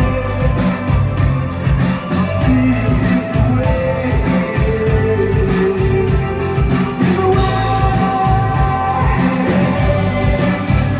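Live indie rock band playing loudly: singing over guitar, with drums keeping a steady beat.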